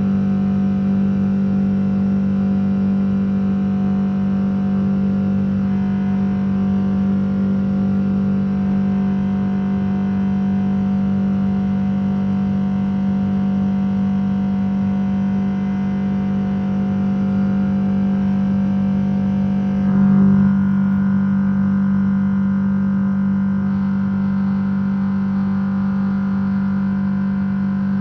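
Jet airliner's turbofan engines heard from inside the cabin during the climb after takeoff: a steady loud drone with a strong low hum, and a brief bump in level about twenty seconds in.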